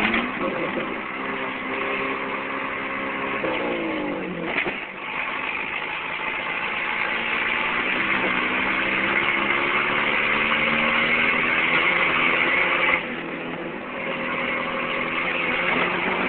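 Old Jeep's engine running under load on a gravel road, heard from inside the cab over steady tyre and gravel noise. The revs fall about four seconds in, then climb slowly, and the road noise drops sharply about three seconds before the end.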